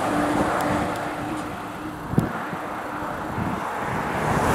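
Heavy lorry passing on the main road and fading away, its tyre noise and steady engine drone falling off. There is a single sharp knock about two seconds in, and road noise swells again near the end as the next truck comes up.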